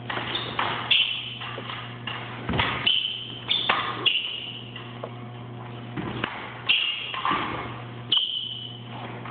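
Steel fencing blades clashing in a bout: a string of sharp metallic clicks and clangs, several ringing briefly at a high pitch, with the odd thud of footwork on the floor.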